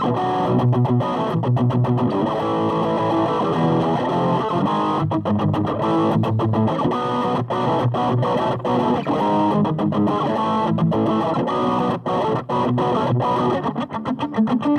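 Music: an electric guitar played through distortion, a continuous run of changing notes.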